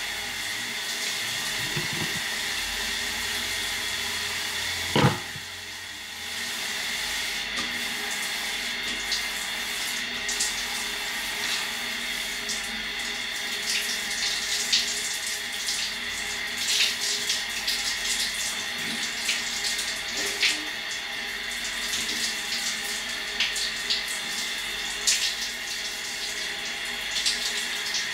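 Shower water running steadily, with scattered short splashes and taps. A loud thump comes about five seconds in, and the water noise drops for about a second after it.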